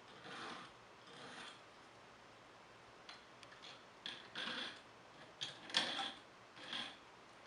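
Hand file scraping across the ends of a metal wire ring band in slow, separate strokes with pauses between them and a few light clicks. The edges are being filed flush so the seam closes without a gap for a butt solder joint.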